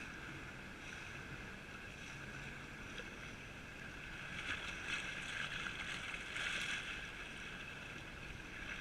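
Jet ski engine running steadily at low speed, with water and wind noise. It grows a little louder for a couple of seconds past the middle.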